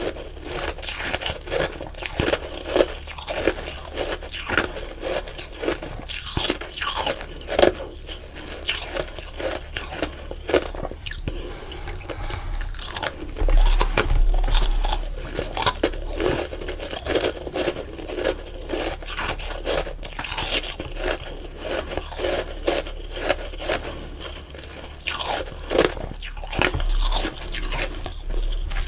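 Chewing a mouthful of powdery, snow-like ice close to the microphone: a steady run of irregular crunches, louder for a couple of seconds about halfway through.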